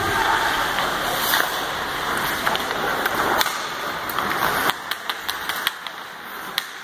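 Indoor ice rink during hockey play: a steady rushing hiss with a few sharp clacks from sticks and puck on the ice. The hiss drops quieter about five seconds in.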